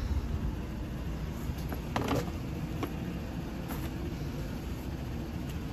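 Pickup truck engine idling with a steady low rumble. About two seconds in there is a sharp knock, followed by a few lighter clicks, as gear is set into the truck's back seat.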